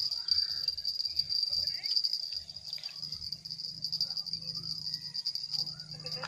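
Insects trilling steadily at a high pitch, with uneven low rumbling knocks in the first few seconds.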